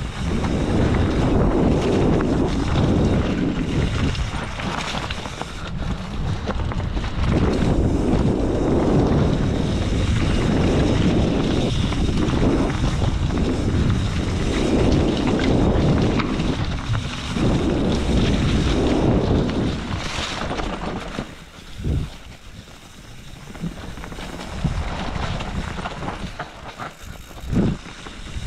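Enduro motorcycle engine running under load off-road, its revs swelling and easing every couple of seconds, with wind buffeting the microphone. It drops away about three-quarters through, with two sharp thumps near the end.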